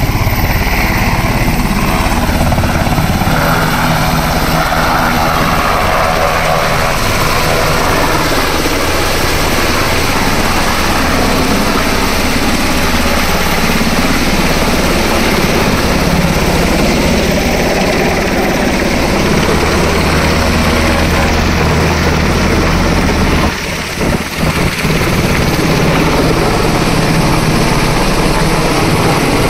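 US Army UH-60 Black Hawk helicopter's rotor and twin turbine engines running loud and steady as it takes off and flies overhead. The sound dips briefly about 24 seconds in.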